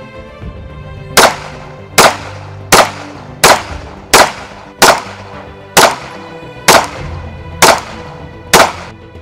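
SIG P365 9mm pistol firing 124-grain ball ammunition: ten single shots, a little under a second apart, over background music.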